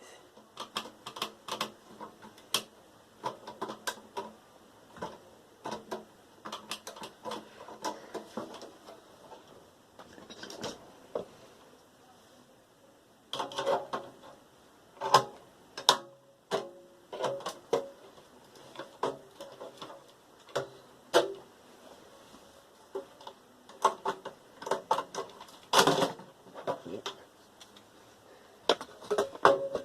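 Irregular clicks, knocks and clatter of plastic and metal computer parts being handled and pulled apart, as a desktop tower is taken to pieces.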